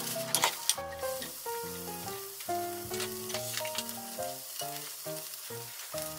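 Tamagoyaki omelette and pieces of ham sizzling in a frying pan, with sharp spatula clicks and scrapes in the first second. Soft background music of separate held notes plays underneath.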